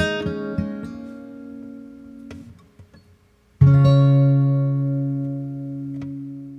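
Acoustic guitar closing the song: the last picked notes die away, then about three and a half seconds in a single chord is struck and left to ring out.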